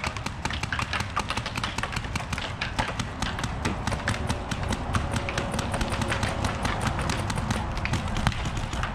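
Mechanical paintball markers firing from several players at once: an irregular, overlapping stream of sharp pops, many a second.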